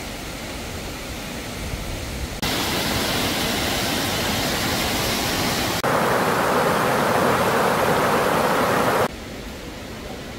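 Rushing water of a mountain stream or small waterfall, a steady roar heard in a few short clips joined by hard cuts, louder in the middle stretch.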